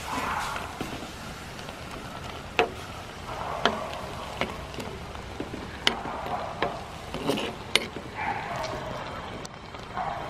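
Prawns boiling and sizzling in their cooking water in a clay pot as the water boils down, stirred with a metal spoon that scrapes the pot and clicks sharply against it several times.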